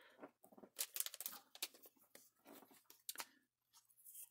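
Faint handling noises: a Pokémon trading card being turned and shifted between fingers, with scattered light clicks, taps and rustles.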